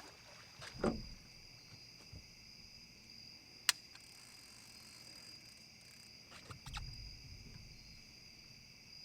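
Crickets chirring at night, a steady high-pitched trill, with a few brief handling sounds over it: a short swish about a second in, a sharp loud click a little before four seconds, and a low rustle near seven seconds.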